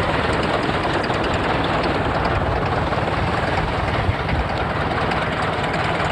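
Light single-engine airplane, a Citabria taildragger, with its piston engine and propeller running steadily.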